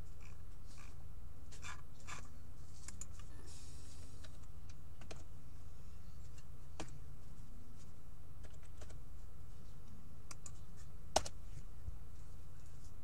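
Irregular clicks and taps of typing on a computer keyboard, with one sharper click about eleven seconds in, over a steady low hum.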